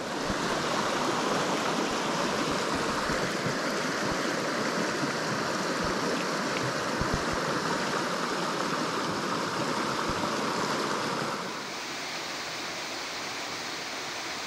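Steady rush of a small rocky mountain stream running over riffles and rocks. It drops a little quieter about eleven seconds in.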